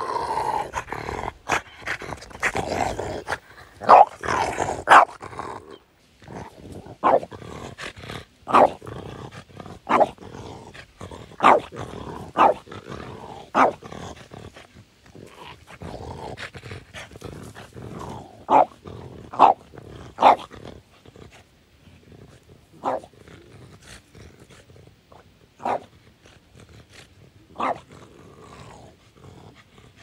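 French bulldog growling in excited play, then giving short sharp barks every second or two that grow fewer toward the end.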